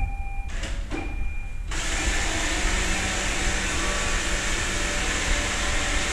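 iRobot Roomba 690 robot vacuum starting a cleaning run: a couple of short electronic tones, then its vacuum motor and brushes switch on abruptly about a second and a half in and run steadily.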